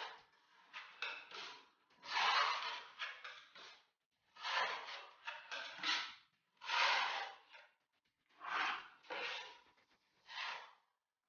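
Filling knife scraping filler across a plaster wall in a series of separate strokes, each a short rasp lasting up to about two seconds, with silent pauses between them.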